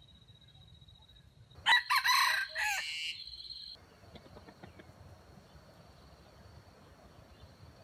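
Red junglefowl rooster crowing once, about two seconds in: a short crow that breaks into stuttering pieces and trails off lower, lasting about two seconds.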